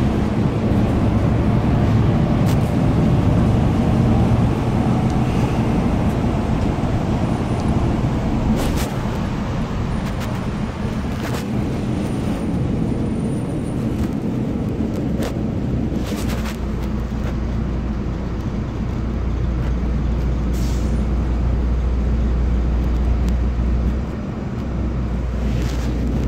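Inside a Solaris Urbino 18 III articulated city bus under way: steady diesel engine and road noise, with the engine note settling into a deeper drone about two-thirds of the way through. A few short sharp clicks and rattles from the bus body come through now and then.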